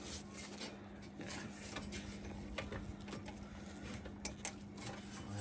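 Light clicks and ticks of suspension parts being fitted by hand at the front knuckle, with two sharp clicks a little over four seconds in, the loudest of them; a faint steady hum runs underneath.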